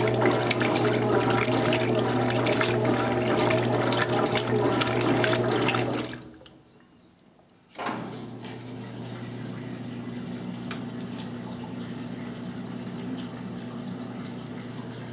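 Electrolux Top 8 top-loading washing machine in its rinse cycle: water running loudly with a steady mechanical hum, which fades out about six seconds in. After a second and a half of near quiet, water starts running again more softly, with a steady hum.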